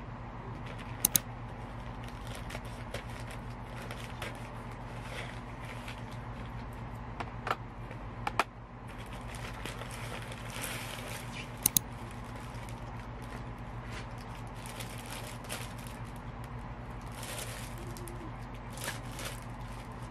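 Plastic packaging being handled and unwrapped: a poly mailer bag and air-column cushioning wrap rustling and crinkling, with several sharp crackling clicks. A steady low hum runs underneath.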